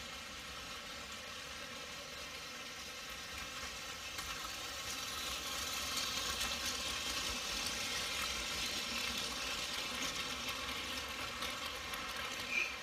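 Battery-powered Plarail toy trains running on plastic track, their small motors giving a steady high whir. It grows louder as the TRAIN SUITE Shikishima and Aru Ressha trains pass close by about halfway through, then eases off, with a short sharp click near the end.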